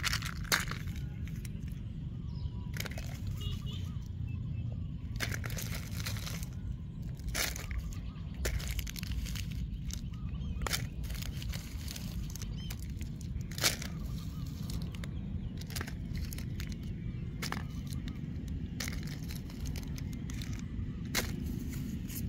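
Plastic-wrapped lollipops and sweets being picked up and handled, giving scattered crinkles and light clicks, with a sharper click about two-thirds of the way through, over a steady low rumble.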